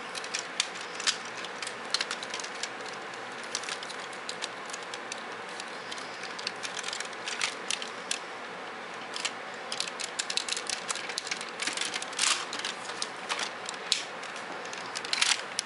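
Hard plastic parts of a Robots in Disguise Optimus Prime transforming toy clicking and rattling irregularly as they are handled and worked into place, over a steady hiss.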